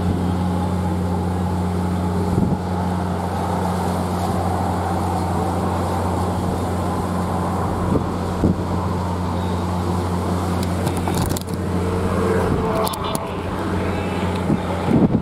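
A steady low engine hum with a deep, even drone under wind and water noise, dropping away about eleven seconds in.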